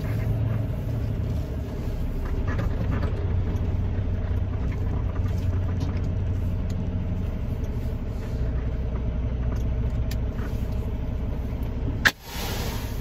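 Steady low rumble of a semi truck driving, heard from inside the cab. Near the end there is a sharp click, a brief dip and a short burst of hiss.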